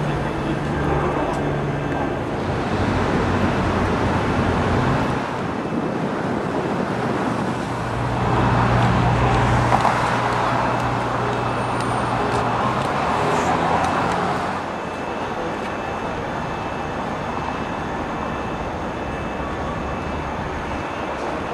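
City street traffic: a steady wash of passing cars, with a vehicle passing close and louder about a third of the way in, its engine hum fading after a few seconds.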